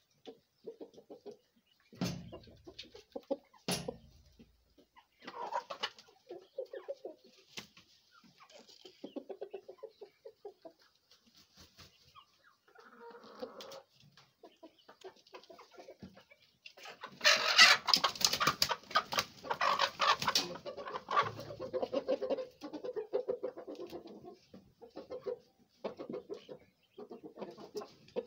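Chickens clucking in short repeated calls, with two sharp knocks about two and four seconds in and a louder, busier stretch of calling about two thirds of the way through.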